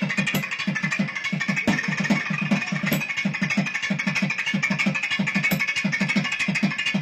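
Several thavil barrel drums playing a fast, dense rhythm of rapid, even strokes, with a saxophone holding a steady line above them.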